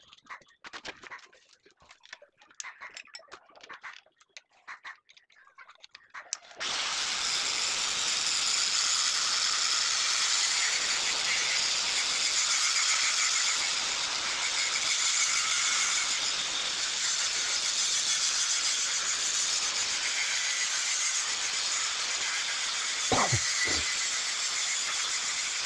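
An angle grinder fitted with a 60-grit sanding disc runs steadily along the moulded edge of a granite strip, giving a steady whine over grinding noise. It starts suddenly about six and a half seconds in, after a stretch of faint scattered clicks.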